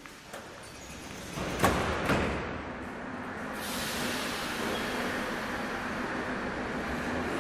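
Moscow Metro train: two sharp metallic clanks about a second and a half and two seconds in, then the train's rushing rumble building up and holding steady.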